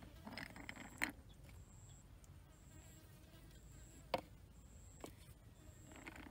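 Quiet handling of a drinking glass and beer can: light clinks in the first second ending in a sharp knock, and another sharp knock about three seconds later. A faint high-pitched tone pulses about once a second.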